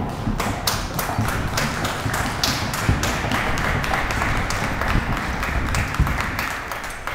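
Paso Fino mare's hooves tapping rapidly and evenly on a wooden fino strip (sounding board) in the breed's four-beat gait. The hoofbeats die away near the end as she comes off the board.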